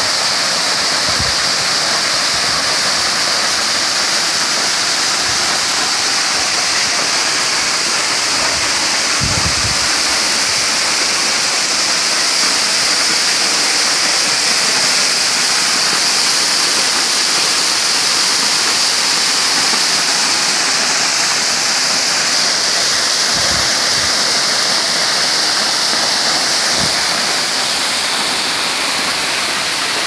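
Horsetail waterfall up close: a loud, steady rush of white water falling onto rocks and into the pool below.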